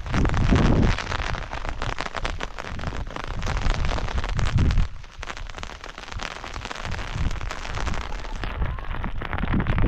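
Rain pattering steadily, with low rumbling gusts of wind on the microphone now and then.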